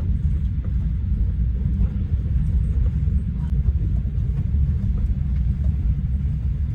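A steady, loud low rumble with no voices.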